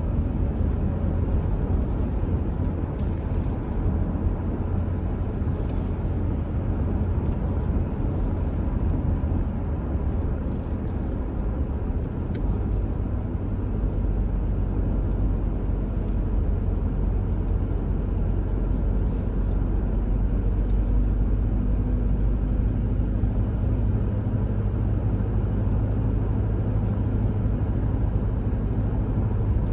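Car driving at a steady speed: a continuous low rumble of engine and tyre road noise, growing a little heavier about halfway through.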